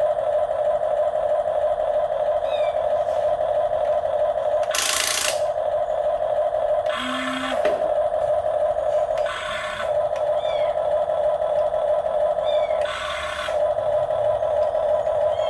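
RC excavator's motor running with a steady whine at one pitch, broken four times by short bursts of hiss.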